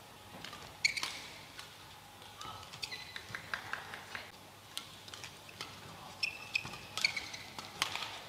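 Badminton rally play: sharp racket strikes on the shuttlecock at irregular intervals, mixed with brief squeaks of court shoes on the mat.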